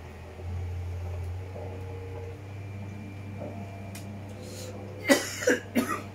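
A low steady hum, then about five seconds in a man coughs three times in quick succession, loud and sharp, close to the microphone.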